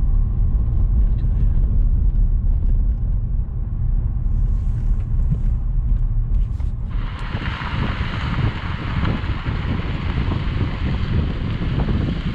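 Car driving on a dirt road: a steady low road rumble heard from inside the cabin. About seven seconds in it changes abruptly to loud wind and tyre noise picked up outside the car beside the front wheel.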